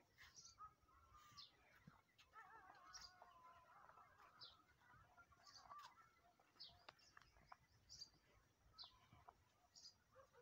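Faint bird calls: short high chirps about once a second, with a softer warbling call around two to four seconds in, over a quiet background.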